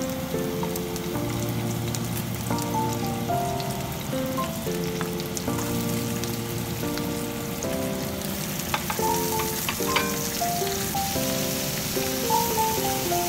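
Garlic and chopped vegetables sizzling in hot oil in a nonstick frying pan as they are tipped in from a plate with a spatula. The sizzle grows louder near the end as the tomatoes and onions go in, with a few sharp clicks about nine to ten seconds in. Background music with changing notes plays throughout.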